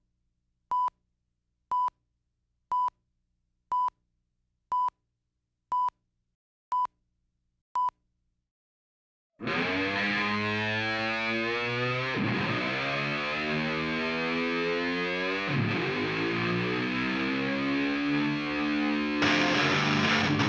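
Film-leader countdown beeps: a short high beep once a second, about nine times. About nine seconds in, loud distorted electric-guitar rock music starts, its pitch swooping down and back up twice.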